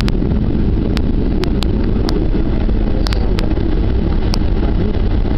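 Cabin noise of a Boeing 757-300 rolling along the runway after landing: a loud, steady low rumble, with sharp clicks now and then.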